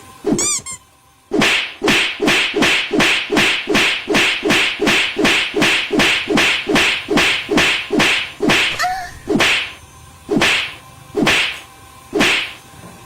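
A fast series of sharp, whip-like swishes, about three a second, slowing to about one a second in the second half.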